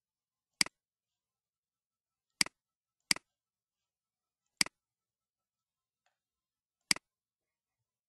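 Five sharp computer mouse clicks, each a quick double tick, spaced irregularly with dead silence between them.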